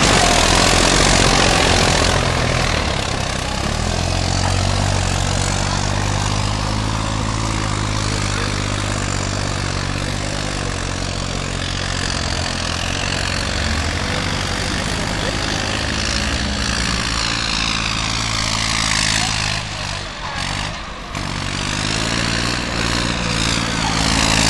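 Modified farm tractor's engine working hard through deep mud and water, its pitch rising and falling with the throttle, over a rushing haze of splashing spray. The engine drops away briefly about 20 seconds in, then revs up again near the end.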